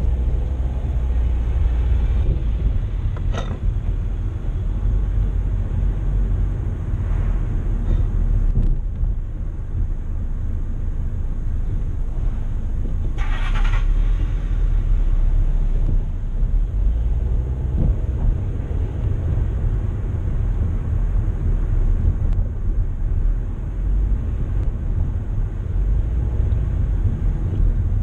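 Inside a car's cabin while driving slowly: a steady low rumble of engine and tyres on the road. A brief higher hiss about halfway through.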